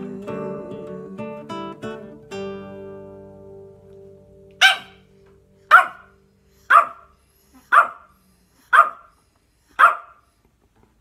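Acoustic guitar playing its last few notes, which ring out and fade. Then a dog barks, one sharp bark about every second, six times.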